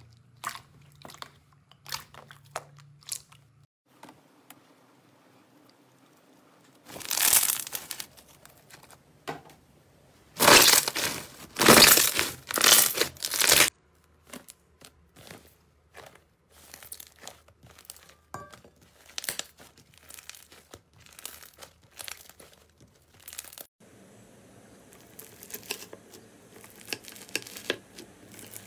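Slime handled by hand, with sticky clicks and pops as it is squeezed. In the middle come loud bursts of crinkling and crackling. Near the end there are small crunchy crackles as a knife cuts into bead-filled slime.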